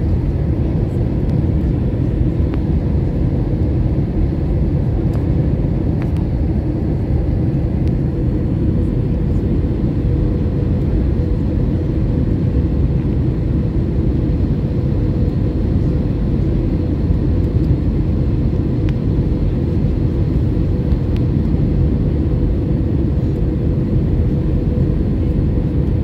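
Steady cabin noise of an Airbus A320 descending on approach for landing: the low rush of airflow and engines, with a thin steady hum above it.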